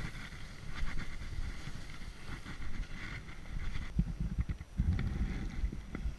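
Skis hissing and scraping over snow during a downhill run, with wind buffeting the helmet camera's microphone. About four seconds in the ski hiss drops away, leaving mostly wind rumble and a few short knocks.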